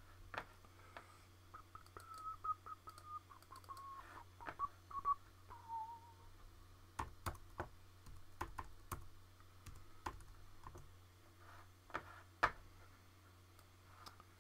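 Scattered computer mouse clicks and keyboard keystrokes at irregular intervals, over a steady low hum. From about one and a half to six seconds in, soft whistling of a few notes steps down in pitch.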